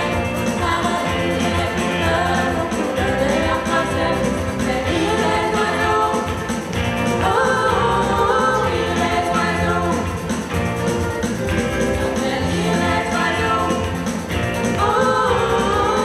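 Live band playing a song, with female voices singing over ukuleles, guitars and electric bass and a steady bass beat.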